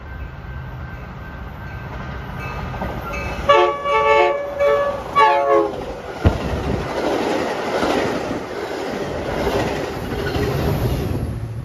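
A Metra commuter train sounds its horn in a few loud blasts as it approaches. Its stainless-steel bilevel cars then rush past with wheels clattering on the rails, after a sharp click as the first wheels reach the spot.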